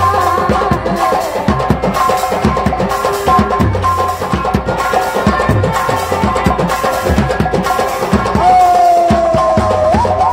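Instrumental dance music: fast drum strokes under a steady melody line, with one long held note near the end that slides up at its close.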